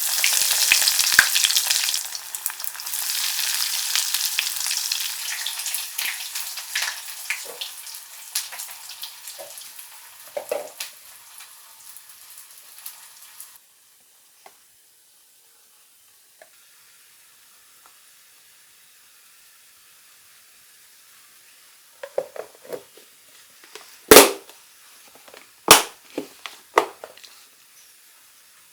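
Food frying in hot oil: a loud crackling sizzle that starts at once, slowly dies down and cuts off about halfway through. Near the end, a handful of sharp knocks.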